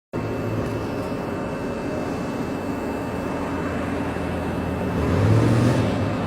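A steady low rumbling drone, swelling briefly about five seconds in, with a faint steady high tone above it, of the kind circulated as a strange sound from the sky.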